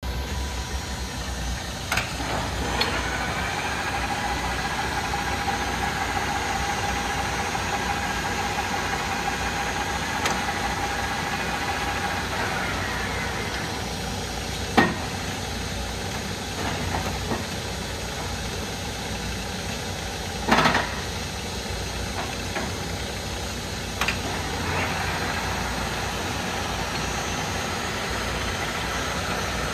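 LeBlond 34 x 120 engine lathe running steadily, with a whine for the first dozen or so seconds and several sharp clunks as its headstock levers are worked, the loudest about two-thirds of the way through.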